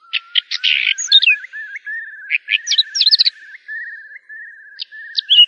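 Bird chirping: a fast wavering trill runs under quick, sharp chirps and tweets.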